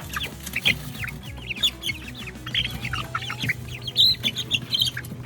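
Young chickens peeping: many short, high chirps overlapping several times a second, loudest about four seconds in.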